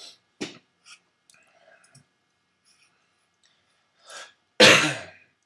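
A person coughs once, loudly and suddenly, near the end, just after a softer short sound.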